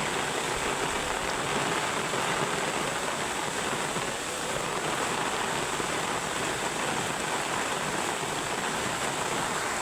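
Steady rush of a small river's fast-flowing water together with heavy rain.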